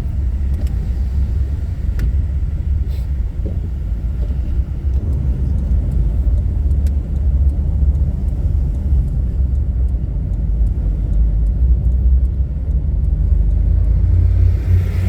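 Wind buffeting a phone's microphone: a loud, unsteady low rumble that swells and eases with the gusts.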